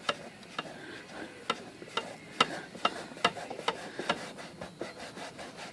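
A rag rubbing over the painted metal body of an Olympia SM3 typewriter, with irregular light clicks about two or three times a second, as softened sticker glue is worked off with denatured alcohol.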